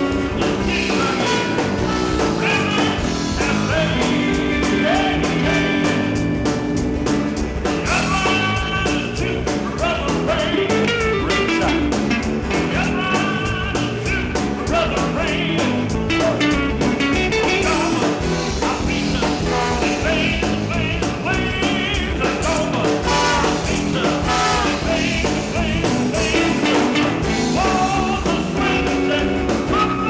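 Live blues band playing, with electric guitars, a drum kit and a horn section of trombone, trumpet and saxophone.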